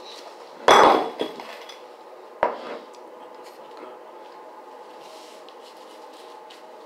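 A hard object clatters down with a brief ringing, then a second, lighter knock comes under two seconds later.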